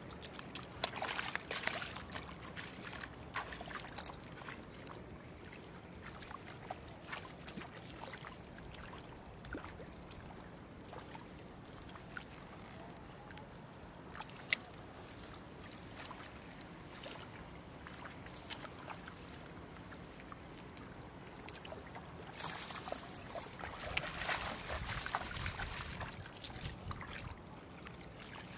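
Shallow water splashing and trickling, with scattered small splashes and clicks. A louder, busier stretch of splashing comes near the end.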